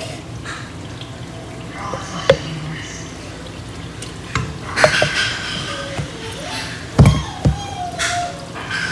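Wooden spoon scooping wet minced garlic out of a plastic jar: scattered knocks, clicks and wet scrapes, the loudest knock about seven seconds in.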